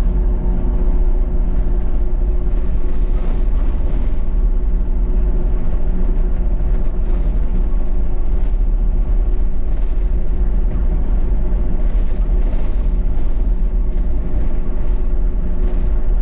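Mini excavator's diesel engine running steadily under load, a constant deep drone with a few faint knocks as the machine works.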